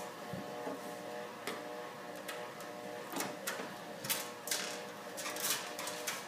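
Screwdriver turning a screw into a metal computer case: a run of irregular small metallic clicks and scrapes over a steady electrical hum.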